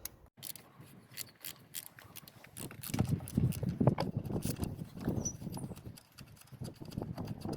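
Ratchet with an E8 Torx socket undoing a small bolt holding the radiator cooling fan: an uneven run of clicks and knocks, busiest in the second half.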